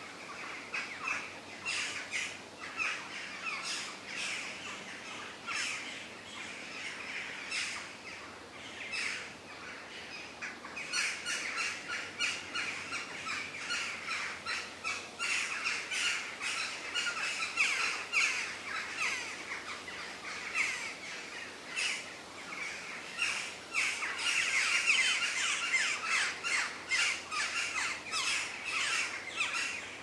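A dense chorus of many forest birds chirping and calling at once, a steady stream of short chirps that grows busier and louder in the second half.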